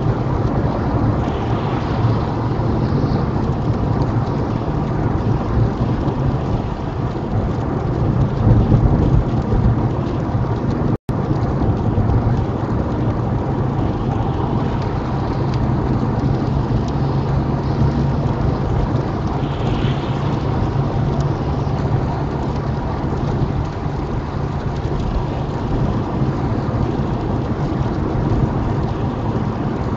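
Steady low rumble of tyre and road noise inside a small car driving on a wet motorway, with rain hitting the windscreen. The sound cuts out for an instant about eleven seconds in.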